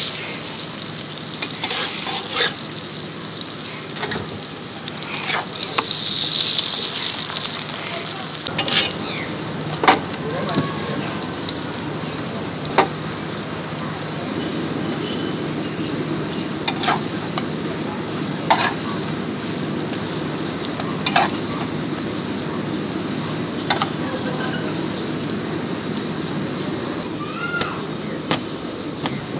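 Parathas frying in oil on a flat griddle, sizzling steadily, with sharp clicks and scrapes of a metal spatula against the griddle every few seconds. About six seconds in there is a louder burst of sizzle.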